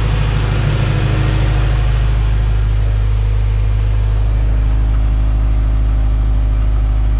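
Honda B18C VTEC 1.8-litre four-cylinder engine of a 1998-spec Integra Type R idling steadily while warming up. It runs nice and quiet with little valve ticking, a sign that the freshly fitted valve stem seals and lost motion assemblies are working as they should.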